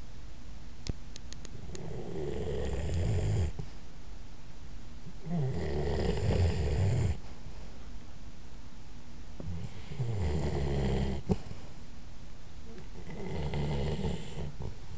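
A sleeping chocolate Labrador retriever snoring: four long snores, each lasting about one and a half to two seconds, coming roughly every four seconds. A few faint clicks sound about a second in.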